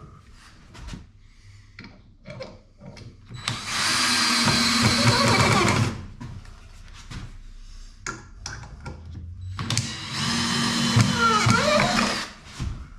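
Cordless drill running twice, each run about two and a half seconds long and about four seconds apart, drilling into a wooden batten held against the wall; its pitch wavers during the second run. Light knocks and handling clicks come between the runs.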